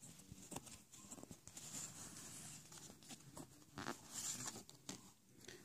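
Faint rustling and scuffing of scratch-off lottery tickets being handled, a few soft brushes of card against card.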